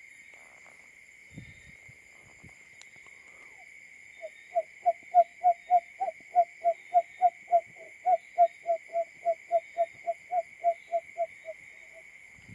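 Barred buttonquail call: a long even series of short low hooting notes, about three to four a second, starting about four seconds in and fading over the last few notes. A steady high drone runs underneath.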